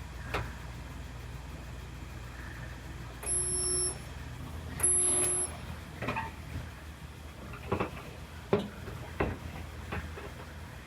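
Two short electronic beeps, each about half a second long and about a second apart, then several light knocks and clicks, over a steady low hum.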